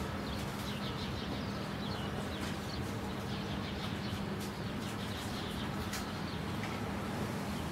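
Small birds chirping in quick repeated notes, over a steady low hum.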